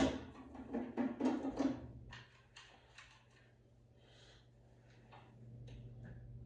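Washing machine's metal top panel being opened: a sharp knock, then about two seconds of clattering and rattling, followed by a few lighter clicks over a steady low hum.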